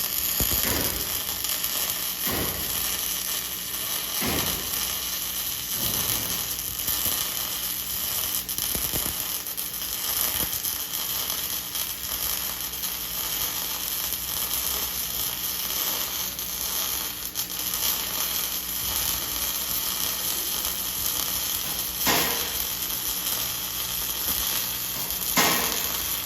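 MIG welding arc crackling and sizzling steadily as wire is fed into the weld, with a few short louder sweeps, the strongest near the end.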